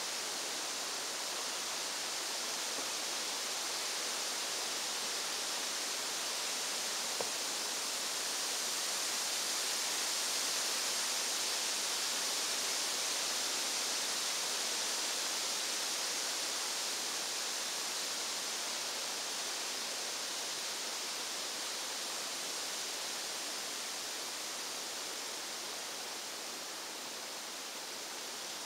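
Steady, even high-pitched hiss with no distinct events, apart from a single faint click about seven seconds in.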